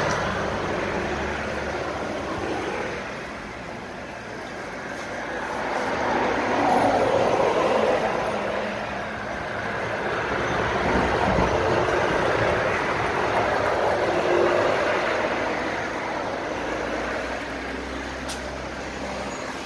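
Road traffic passing, vehicles swelling and fading, loudest around seven seconds in and again around thirteen seconds in.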